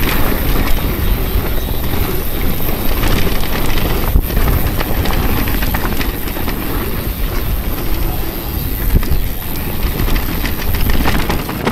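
Orbea Rise electric mountain bike riding a dirt singletrack: tyres rolling over loose dirt and stones, with many small rattles and clicks from the bike and a heavy wind rumble on the microphone.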